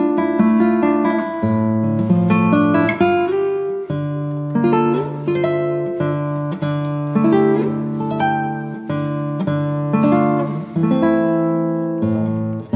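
Instrumental background music of plucked acoustic guitar, with picked melody notes that ring and fade over held bass notes.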